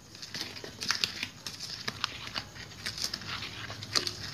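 Flour being stirred by hand into a wet batter of eggs, sugar, grated coconut and potato in a bowl: irregular scraping and crackling strokes, several a second.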